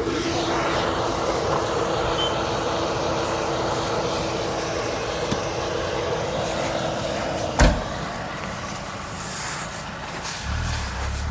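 Vehicle engine running hard with a steady held whine, ended by a sharp knock about seven and a half seconds in, after which the engine sound drops lower.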